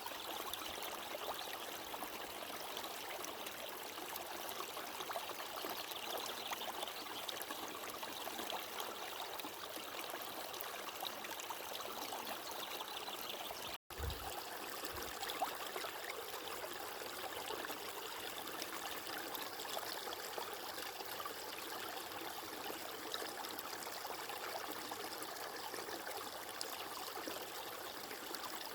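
Flowing water running steadily, like a stream, a continuous even rush. About halfway through the sound cuts out for a split second, with a brief low thud as it comes back.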